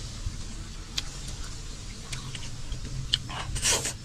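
Scattered light clicks and clinks of eating utensils against a bowl during a meal, over a steady low rumble.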